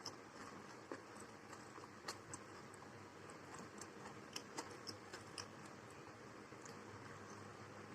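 Faint, scattered small clicks and taps at irregular intervals over a steady low hum.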